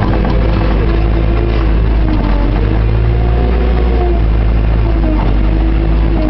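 JCB 532-120 telehandler's diesel engine and hydraulics running, heard from inside the cab: a steady low drone with a whine that wavers up and down in pitch as the machine works.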